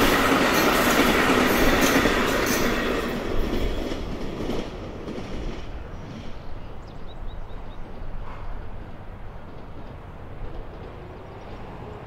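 VIA Rail passenger train of Siemens Venture coaches rolling past, wheels clattering on the rails. The sound fades quickly about four seconds in as the end of the train goes away, leaving a low distant rumble.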